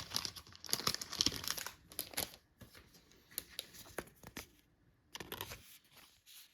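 Plastic trading-card sleeve crinkling and rustling as it is pulled out and handled to sleeve a card: a dense run of crinkles over the first two seconds or so, then sparser rustles with short pauses.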